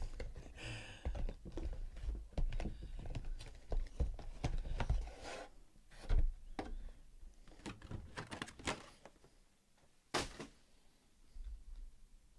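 Trading-card packs and their cardboard box being handled on a tabletop: a brief rustle of card and paper, then a run of taps and thunks as packs are set down and stacked, with one sharper knock about ten seconds in.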